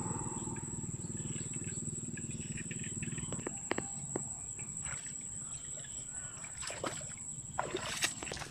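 Outdoor chorus of insects and frogs: a steady high insect whine over a low, rapidly pulsing drone, with a few sharp clicks and brief rustles or splashes toward the end.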